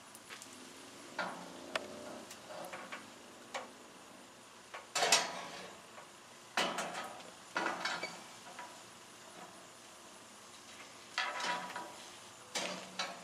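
Aluminum gazebo roof-frame parts clanking and knocking against each other as they are fitted by hand, in a series of irregular metallic knocks, the loudest about five seconds in.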